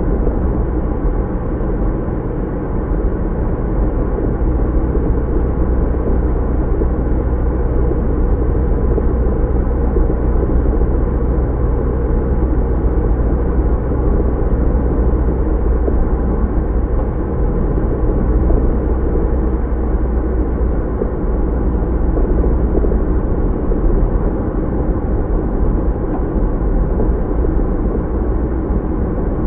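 Car driving at steady speed: a continuous rumble of tyres on the road with a low engine hum, muffled as heard inside the cabin.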